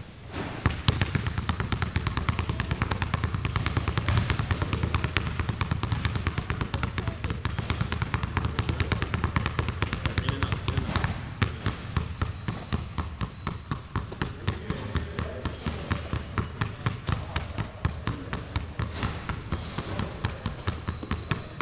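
Basketballs dribbled fast on a hardwood gym floor: a quick, steady run of bounces with a short break about halfway through. Near the end two balls are dribbled at once.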